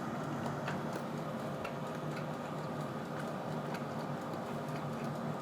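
A person chewing a bite of smoked pork belly: faint, irregular mouth clicks over a steady low hum.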